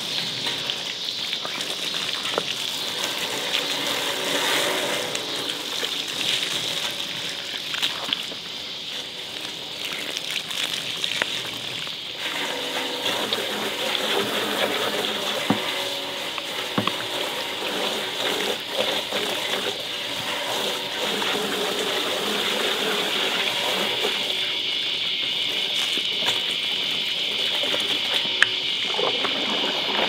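Water from a hose splashing onto and through the perforated stainless steel drum of a washing machine as it is rinsed clean, a steady splashing with a few knocks.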